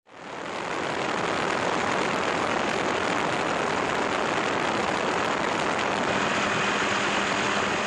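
Steady rushing helicopter engine and rotor noise heard on board, fading in at the start and holding an even level.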